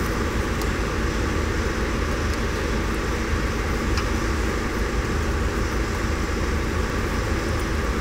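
Steady, even background noise like a fan or air handler running, with a few faint light clicks from plastic hose and harness clips being worked by hand.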